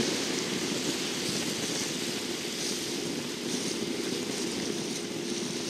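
Motorboat engine running steadily under way, a constant drone with wind and water rushing over it.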